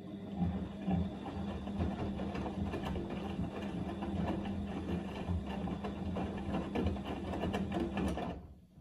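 Siemens Extraklasse XL110A front-loading washing machine tumbling its drum in the main wash of the easy-care 40° cycle: a steady motor hum with wet laundry and water sloshing in the turning drum. The tumble stops about eight seconds in.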